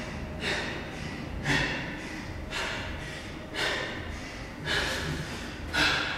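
A person breathing hard and fast, about one heavy breath a second, as after intense exercise.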